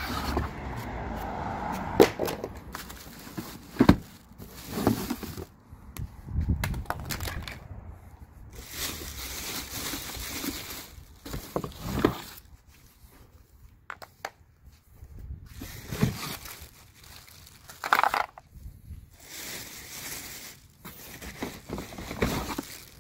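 Cardboard box and molded pulp packaging inserts being handled and pulled apart. It makes irregular scraping and rustling with several sharp knocks.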